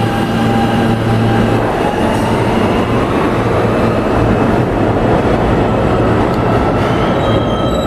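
R160 subway train with Siemens propulsion pulling out of the station. Its motor whine starts rising in pitch about two seconds in as it accelerates into the tunnel, over a steady loud rumble of wheels on rail.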